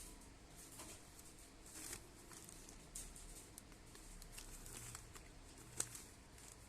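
Faint handling noises: light rustles and small taps, with one sharper click near the end.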